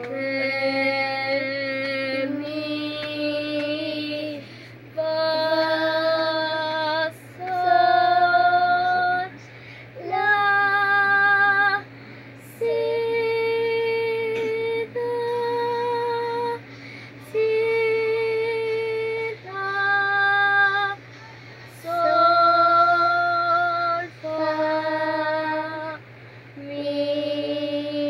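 A girl singing a solfège scale unaccompanied, each note held about two seconds with short breaths between: the notes step up to the top do about halfway, then step back down the scale.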